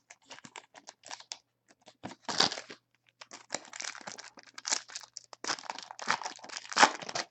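Crinkling and rustling of trading-card packaging and plastic being handled, in irregular bursts with a few sharper crackles.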